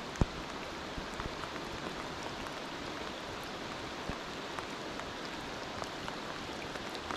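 Steady pouring rain falling on the surface of a river, with scattered close drops ticking and one sharper tap just after the start.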